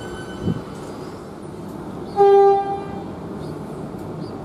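Siemens Nexas electric train rumbling along the rails as it pulls out of the station. About two seconds in it gives one short horn toot, lasting about half a second.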